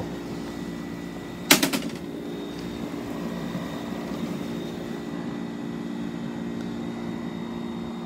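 1960s Westinghouse Mobilaire 7000 BTU window air conditioner running, with a steady compressor hum of several held tones over fan and airflow noise. The compressor is prominent and the cabinet rattles because the unit is not installed. About a second and a half in, there is a sharp clack with a short rattle as the flip-up front cover is closed.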